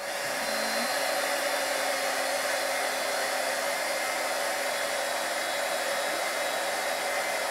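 Handheld embossing heat gun switched on and blowing hot air steadily, a smooth rush of air over a faint steady motor hum, warming a shell-mosaic piece so the crayon wax will flow into the gaps.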